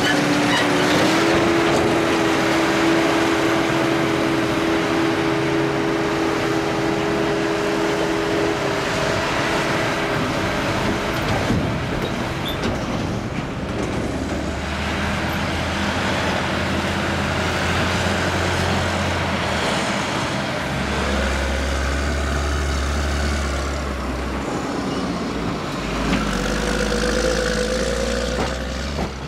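Tractor engines running close by: first a Massey Ferguson 6465 with a steady engine note that steps up slightly about a second in, then tractors driving past hauling silage trailers.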